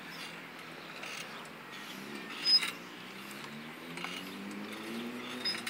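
Playground swing's metal chains and hangers clinking with a short squeak once per swing, about every three seconds. Under it a low hum rises in pitch through the second half.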